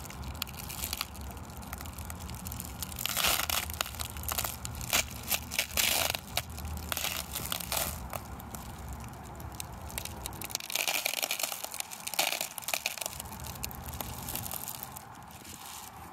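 Foil-faced bubble-wrap insulation being peeled back off a beehive's top bars, crinkling and crackling in several bouts as the sticky propolis holding it tears loose.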